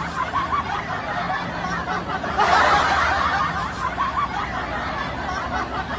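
People laughing and snickering in a continuous run of giggles, swelling louder about two and a half seconds in.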